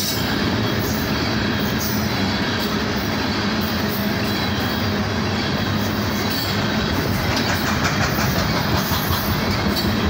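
Loaded coal train's hopper cars rolling past close by: a steady rumble of steel wheels on rail, with scattered clicks as the wheels cross rail joints.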